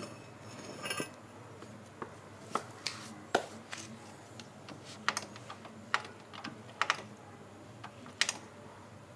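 Irregular light clicks and taps at uneven intervals, like small metal tools and motorcycle kick-starter parts being handled during a repair.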